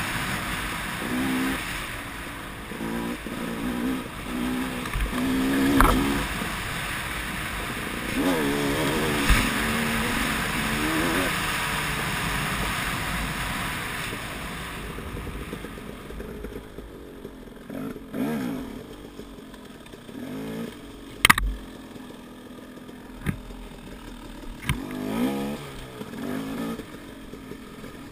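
Dirt bike engine revving up and falling back in repeated throttle bursts while riding a trail, with a rushing hiss of wind on the microphone through the first half. Several sharp knocks come in the second half as the bike moves into the woods.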